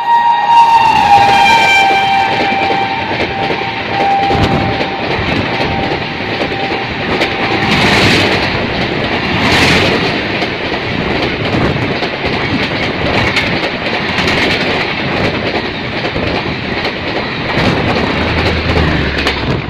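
Passing express train: the electric locomotive sounds a long horn whose pitch drops about a second in as it goes by. Then the coaches rush past, a loud steady rumble with the clatter of wheels over the rails.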